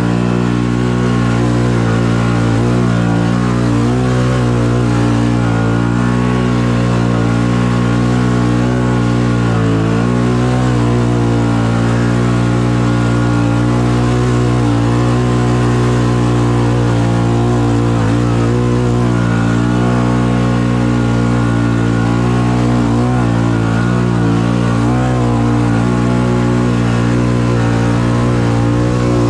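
Can-Am Outlander 850 XMR ATV's V-twin engine running under load at a fairly steady pitch, with small dips and rises in revs.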